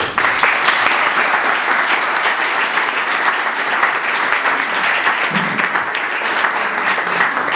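Audience applauding: many people clapping together, starting abruptly and holding steady.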